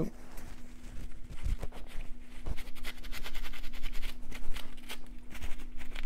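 Quick, irregular rubbing and scrubbing strokes as dried, cracked thermal compound is wiped off MacBook cooling parts with a cloth, over a steady low hum.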